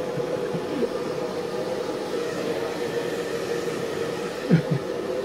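Hand-held hair dryer running steadily with a constant hum, blowing warm air on a wet cat. About four and a half seconds in, a short vocal sound falling in pitch cuts above it.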